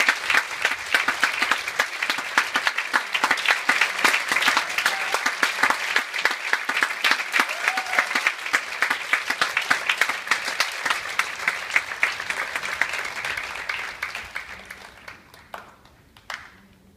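Theatre audience applauding, dense even clapping that dies away over the last few seconds, with one last clap near the end.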